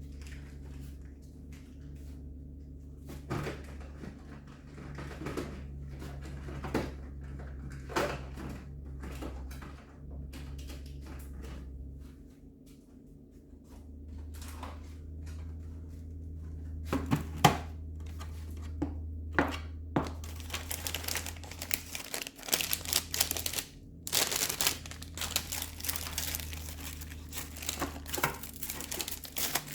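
Packaging and food containers being handled: plastic crinkling and tearing, with scattered knocks and clunks that grow denser and clattery in the second half, over a low steady hum.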